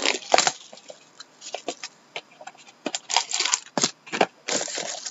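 Plastic shrink wrap being torn and crinkled off sealed trading-card boxes, in short crackly bursts: one just after the start, then a quiet stretch, then a cluster of them from about three seconds in.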